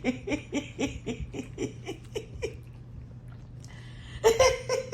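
A woman laughing in a long run of quick, rhythmic 'ha-ha' pulses that trails off about two and a half seconds in, then breaking into louder laughter again near the end.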